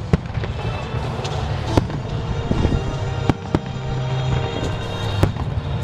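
Fireworks display: about half a dozen sharp bangs of shells bursting, spread unevenly over a few seconds, above a continuous low rumble.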